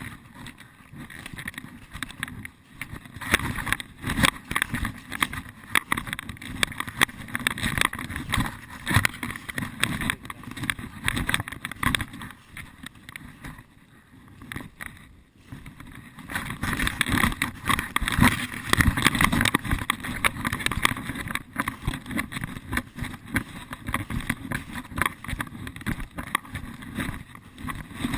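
Dense, irregular rustling and crackling that goes on throughout, easing off for a few seconds in the middle.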